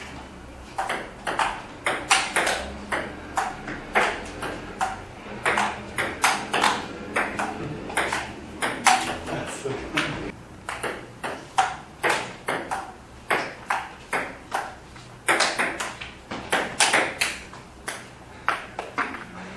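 Table tennis rally: a celluloid-type ping-pong ball alternately bouncing on the table and being struck by rubber-faced paddles, a steady run of sharp clicks at about two a second.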